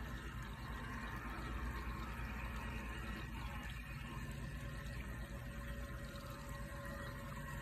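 Water running steadily over rocks down a small garden-pond stream, a continuous trickle and splash.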